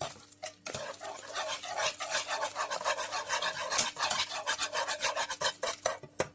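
Quick, rhythmic scraping of a utensil against a saucepan as butter is stirred into a thickened lemon cream. The scraping starts about a second in and stops just before the end.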